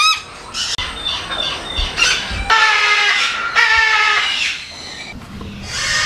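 Parrots squawking: a short rising call at the start, then several loud, harsh calls, the two longest lasting most of a second each around the middle.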